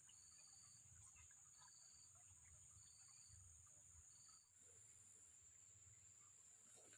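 Faint insects outdoors: a steady high-pitched drone, with a short chirp repeated about every second and a quarter that stops about four and a half seconds in.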